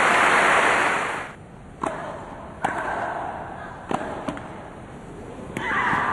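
Crowd applause that dies away after about a second, then a rally of tennis rackets striking the ball: four sharp hits about a second apart. Near the end the crowd noise swells again.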